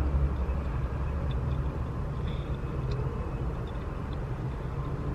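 Jeep Wrangler's engine idling, a steady low rumble.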